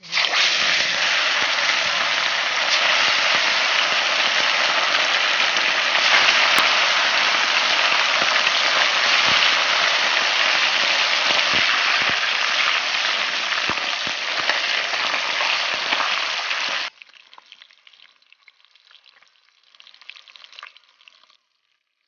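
Fish pieces deep-frying in hot oil in a wok, a loud steady sizzle. It drops away suddenly about seventeen seconds in, leaving a faint crackling sizzle.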